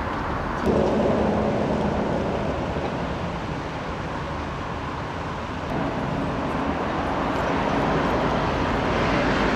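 Steady outdoor background noise, a rumble and hiss with a faint low hum, that grows louder about a second in and again after the middle.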